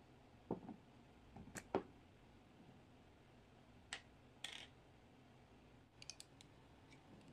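Scattered small clicks and knocks of glass jars and a plastic lid being handled on a wooden table, with a short scrape around the middle, then a quick cluster of light ticks as a small metal spoon touches the glass jar.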